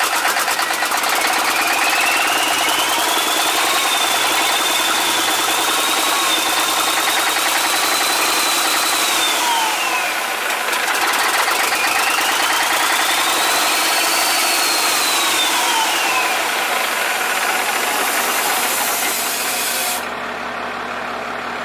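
Caterpillar 3406E diesel being cranked over on its starter without firing, with a whine that rises and falls twice before the cranking stops abruptly near the end. It will not start because fuel is not getting through: a rag left inside is blocking the diesel.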